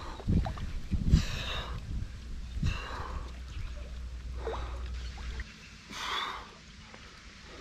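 A man's heavy breathing: four hard, noisy breaths spaced a second or so apart, over a low rumble that drops away about five and a half seconds in.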